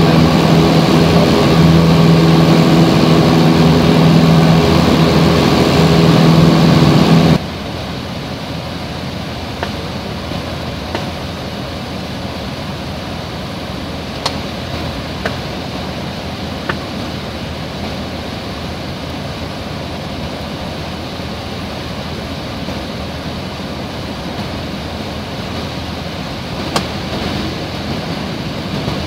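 Piper PA-28's engine and propeller droning steadily inside the cabin, with a low steady hum. About seven seconds in the sound drops suddenly to a quieter, even rush of cabin and engine noise with a few faint clicks.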